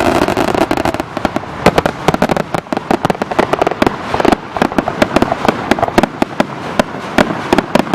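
Aerial fireworks going off in quick succession: a dense, irregular run of bangs and crackling, many reports a second.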